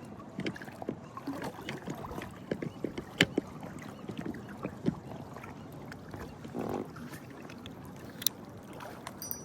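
Small scattered clicks and taps of fishing tackle being handled while rigging a shaky head jig, with a few sharper ticks, over light water sounds around a float tube.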